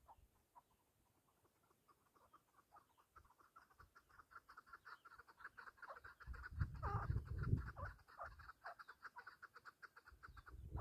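Chukar partridge calling: a long run of rapid, repeated chuck notes that starts about three seconds in and carries on almost to the end. A short low rumble breaks in around seven seconds.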